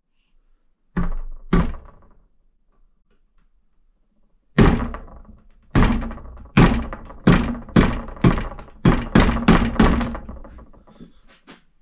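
Hammer blows on the WP XPLOR rear shock, driving the seal head down into the shock body to free the retaining ring: two knocks about a second in, then a run of about a dozen quick knocks.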